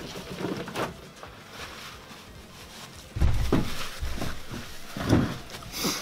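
A man blowing his nose hard into a paper towel, two or three loud blows in the second half. Before that, faint rustling as the paper towel is pulled off the roll.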